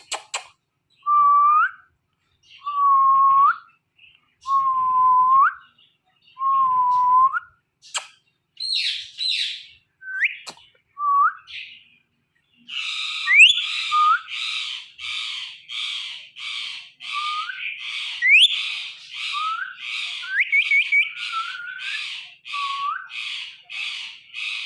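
Indian ringneck parrot calling: four drawn-out whistled calls, each lasting about a second, then scattered short whistles. From about halfway, a fast run of scratchy chattering notes mixed with quick rising whistles.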